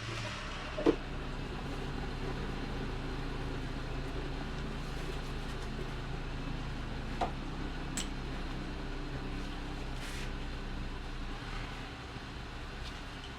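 Steady low mechanical hum with a sharp click about a second in and a few fainter clicks later.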